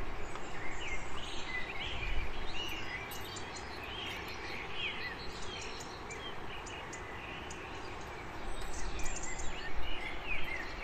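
Small birds chirping again and again over a steady background hiss, with a few light clicks near the end.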